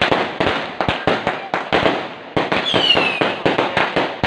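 Fireworks going off in quick succession: a dense run of sharp bangs and crackles, several a second. A falling whistle cuts through about three seconds in.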